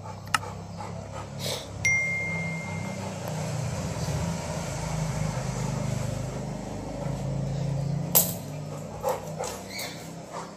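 A low engine rumble that swells over several seconds and then fades, like a vehicle passing, with a short single beep about two seconds in and a few sharp knocks.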